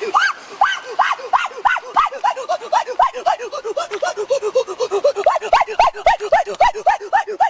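A fast, even series of short rising-and-falling animal calls, about four a second, alternating between a lower and a higher pitch, with scattered sharp clicks.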